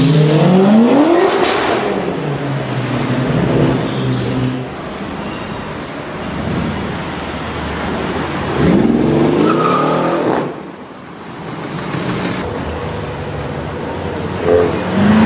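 Performance car engines accelerating hard on a street. The engine note climbs sharply in pitch twice, in the first second and again around nine seconds in, each time breaking off with a sharp crack. Engine and road noise run in between.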